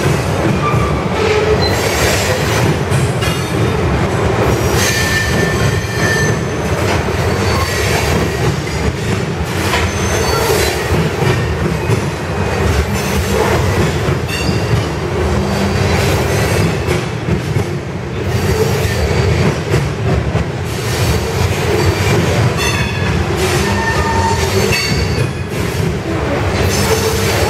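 Covered hopper cars of a freight train rolling past close by: a steady rumble of steel wheels on rail, with repeated clicks as the wheelsets cross rail joints and short high-pitched wheel squeals now and then.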